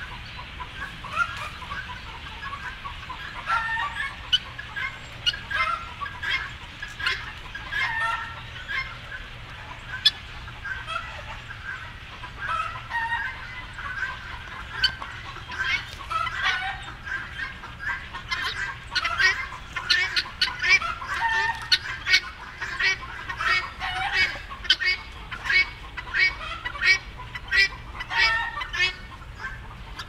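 A large flock of wild birds calling at once overhead: a crowded chatter of short, rapid calls, growing denser in the second half.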